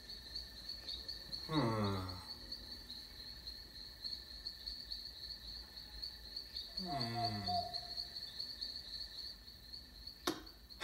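Crickets chirping steadily as a night ambience. Twice a voice gives a drawn-out sound falling in pitch, and a sharp click comes near the end.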